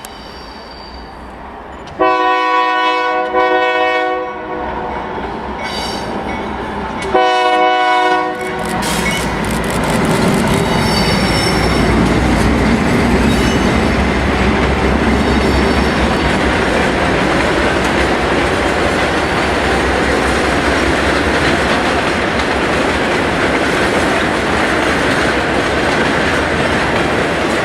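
Diesel locomotive's multi-note air horn sounding for a grade crossing: a long blast, then a second, shorter blast a few seconds later. The steady rumble and clickety-clack of the train running past follows.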